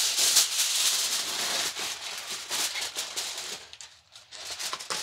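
Aluminium foil crinkling and rustling as a sheet of it is pulled off a metal bowl, with a short pause near the end.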